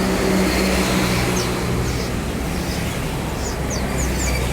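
A motor vehicle's engine running with a steady low hum, swelling up just as it begins, while small birds chirp faintly and high.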